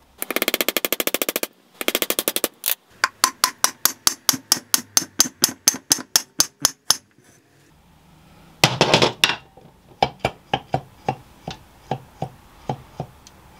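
Hammer blows on the end of a milling machine's spindle shaft, driving it out through its tapered roller bearings: first a very rapid flurry of sharp knocks, then steady strikes about five a second. After a short rattling burst, slower metallic knocks with a slight ring follow, growing fainter.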